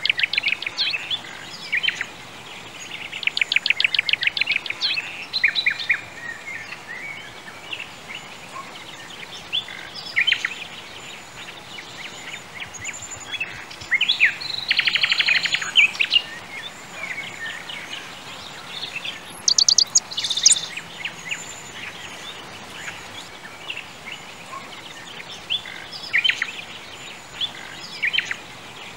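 Birds singing and calling: bursts of fast, rapidly repeated trilled notes recur every few seconds, with scattered short chirps between them, over a steady faint hiss.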